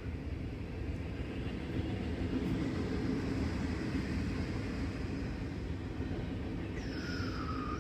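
Train passing: a steady low rumble, with a high tone sliding downward near the end.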